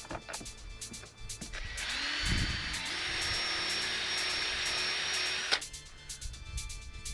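Electric drill running for about four seconds, its motor whine rising as it spins up and stepping up again partway through, then stopping abruptly: drilling a bolt hole through a rubber fender flare and plastic. Background music with a steady beat plays throughout.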